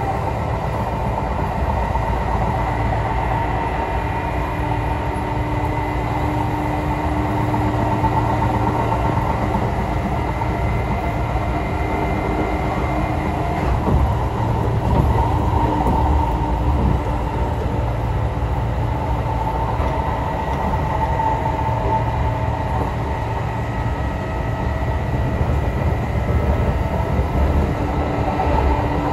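Kintetsu express electric train heard from inside a passenger car while running at speed: a steady rumble of wheels on rail, with faint steady whining tones over it.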